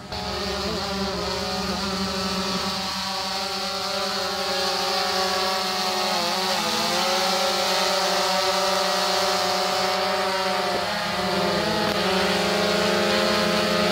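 DJI Phantom 3 quadcopter hovering close by, its four propellers giving a steady multi-toned buzz that wavers a few times and grows a little louder.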